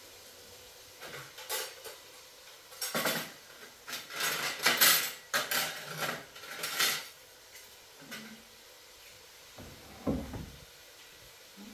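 Tableware clinking and clattering as a dining table is set: plates, glasses and metal spoons being put down and handled, in a run of sharp clinks between about one and seven seconds in, then a dull knock near the end.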